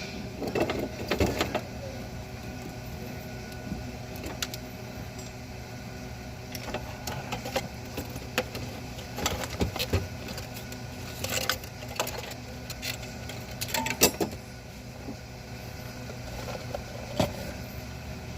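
Scattered short clicks and knocks, loudest in clusters about a second in, around eleven seconds and around fourteen seconds, over a steady low hum.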